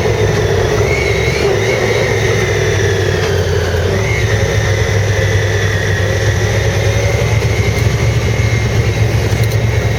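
Four-wheeler (ATV) engine running while being ridden. Its pitch rises and dips a few times in the first four seconds, then holds steady.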